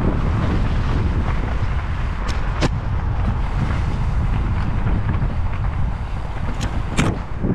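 Wind buffeting a helmet-mounted microphone over the rumble of mountain bike tyres on a dirt trail, with sharp knocks and rattles twice about two and a half seconds in and twice near the end.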